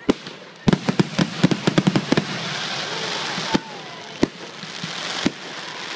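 Fireworks display: a rapid string of sharp bangs from aerial shells bursting, starting about a second in, then a steady hiss broken by a few single bangs.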